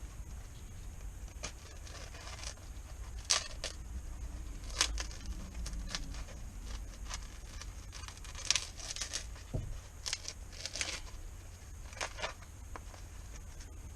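Scattered clicks, rustles and tearing sounds of a Victorinox Traveller Lite pocket knife being opened and used to cut open a bread roll, over a steady low wind rumble on the microphone.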